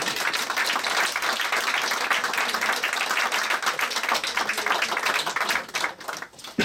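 Audience applauding steadily, thinning out and dying away near the end.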